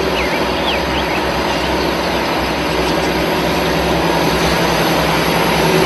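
Large John Deere farm tractor's diesel engine running steadily under load as it pulls a tillage implement across a cultivated field.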